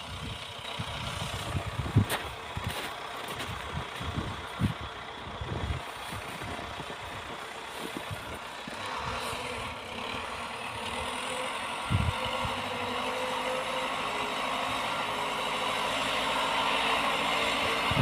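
Diesel engine of an MTZ 892.2 tractor with a front loader running steadily at a distance while it works snow. There are a few low thumps in the first half, and the engine grows a little louder toward the end.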